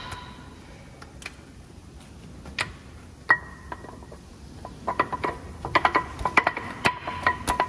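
Metal clinks and knocks with a short ringing tail from truck disc-brake pads and their hardware being fitted into the caliper. A few separate knocks early, then a quicker run of clicks near the end.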